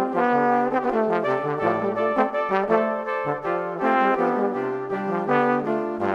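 Instrumental background music: a melody of held notes over a slower-moving bass line, steady throughout.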